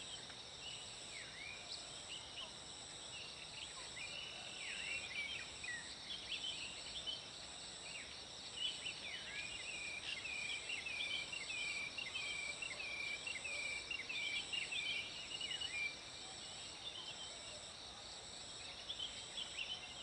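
Birds singing in the forest at dawn, short downslurred chirps with a fast run of calls through the middle, over a steady high insect buzz that pulses evenly.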